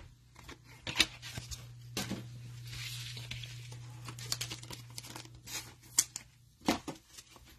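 Glossy trading cards handled in nitrile-gloved hands: cards flicked and slid against each other in a run of sharp clicks and snaps, with a longer rubbing swish about two to three seconds in. A low steady hum runs underneath.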